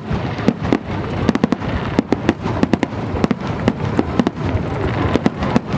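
Fireworks display going off in rapid succession: many sharp bangs, several a second, over continuous crackling and rumbling of bursting shells.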